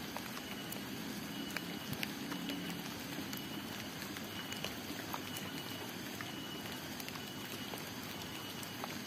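Outdoor ambience after rain: a steady hiss with scattered, irregular drops of water falling from wet leaves and roofs, and a faint high-pitched call repeating now and then.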